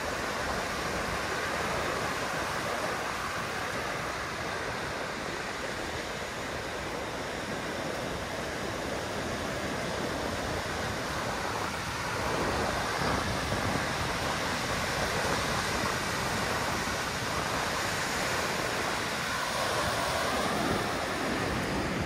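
Ocean surf: a steady rush of waves breaking and washing, a little louder from about halfway through.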